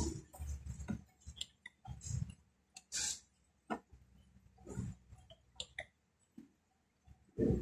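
Irregular light clicks and knocks with short pauses between them. A steady low hum comes on suddenly near the end.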